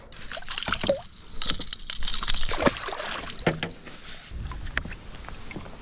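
Water splashing and sloshing around a small boat, with scattered knocks and rustles of handling.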